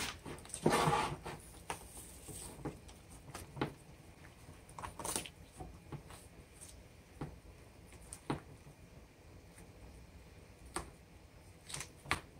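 Soft, irregular crackling, peeling and tearing noises as a flexible urethane foam rubber casting and its flashing are pulled free from the mold by hand. There is a louder rustling tear about a second in, then scattered sharp clicks.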